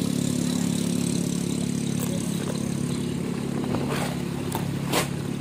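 Engine running steadily at an even speed, with a few sharp clicks or knocks over it near the end, the last the loudest.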